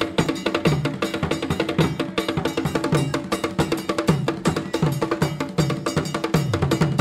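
Opening title music with busy percussion playing a fast, steady rhythm over a repeating low bass line.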